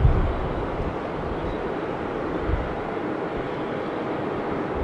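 Distant Boeing 747-400F's four jet engines running, heard as a steady, even roar.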